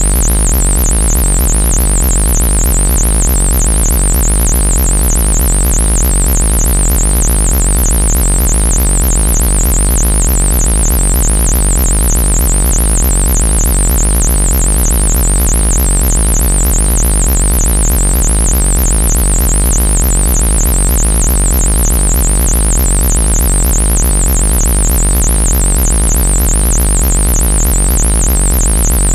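Synthesized sci-fi 'alien buzzer' sound effect: a loud, harsh, continuous electronic buzz over a deep drone, with a high warbling tone that wobbles rapidly up and down without a break.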